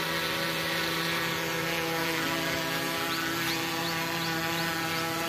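Quadcopter's four 930 kV brushless motors spinning 10-inch (1045) propellers, a steady multi-toned whine from the drone in flight.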